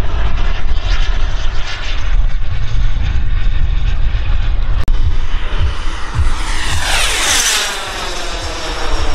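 Xicoy 132 model jet turbine of an RC F-35 in flight, a steady jet whine and hiss. It grows louder and sweeps down in pitch about seven seconds in as the jet passes.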